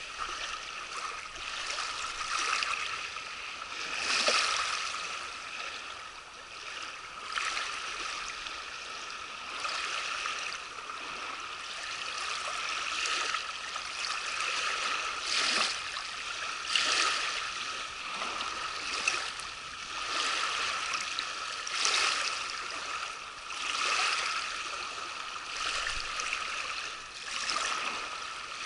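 Small river waves lapping against a sandy bank, washing in and out in uneven swells every couple of seconds.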